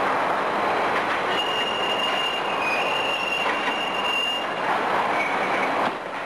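Steady mechanical noise of a Menck M152 cable crawler crane at work, with high metal-on-metal squeals for a few seconds from about a second in and again briefly near the end.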